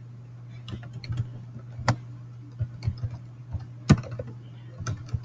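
Computer keyboard typing: irregular key clicks, a few of them louder, over a steady low hum.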